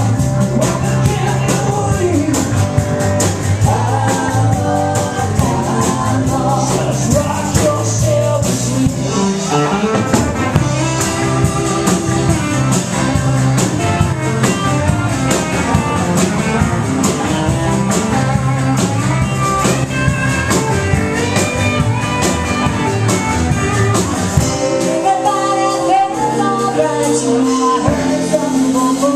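A live rock band playing: singers at the microphones over strummed acoustic guitar and electric guitar, with a steady beat.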